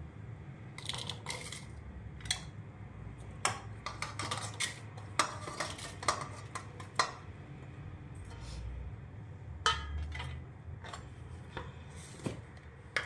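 Cut shallots and raw green mango pieces dropped by hand into a small stainless-steel bowl, with a string of irregular clinks and clatters against steel dishes, thickest in the first seven seconds and a few more near the end.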